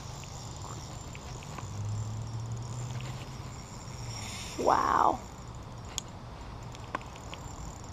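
Daiwa Revros LT 2500 spinning reel being cranked against a hooked, pulling fish: a low steady whir that swells for a couple of seconds, with a few faint clicks near the end.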